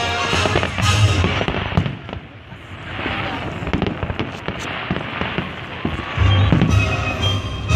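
Fireworks popping and crackling in quick, many-stroke bursts, with music playing over them; the music drops away about two seconds in and comes back loud near the end.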